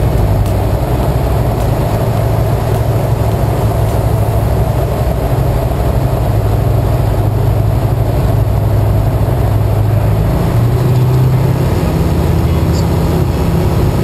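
Tecnam P2002 Sierra light aircraft's engine and propeller droning steadily in the cockpit at approach power, with a slight change in pitch about ten seconds in.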